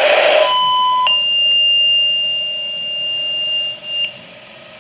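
Weather radio speaker playing odd tones from a NOAA Weather Radio transmission: a loud hiss cuts off about half a second in, a short mid-pitched tone follows, then a single high-pitched steady beep holds for nearly three seconds and ends with a brief blip.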